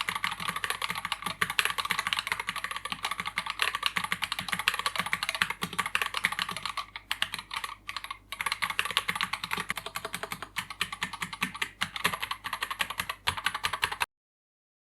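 Typing on an Akko MOD007 gasket-mount mechanical keyboard with Akko CS Jelly White switches and OSA-profile PBT keycaps: a fast, continuous clatter of keystrokes with a brief pause about halfway through, stopping suddenly near the end.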